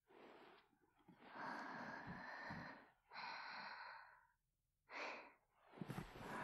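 A woman's slow breaths and sighs close to a binaural dummy-head microphone: several drawn-out exhalations one after another, with short pauses between them.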